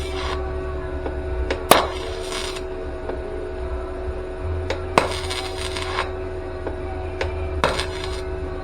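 Short bursts of flux-core wire welding on thin car body sheet metal, tack or stitch welds, each starting with a sharp crack and sizzling for under a second. A steady electrical hum runs underneath.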